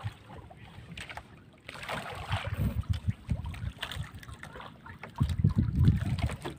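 Wet gill net being hauled by hand over the side of a small boat, water dripping and splashing off the mesh. Low rumbles of wind and handling on the microphone are loudest about five seconds in.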